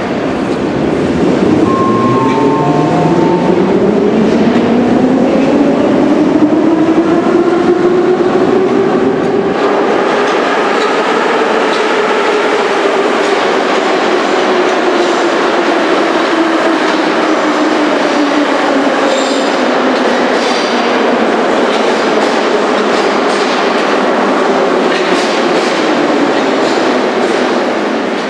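Moscow metro train of the 81-717/714 type running through the station, its traction motors whining over the rumble and clatter of the cars. The whine rises in pitch over about ten seconds as the train accelerates, then holds and slowly sinks.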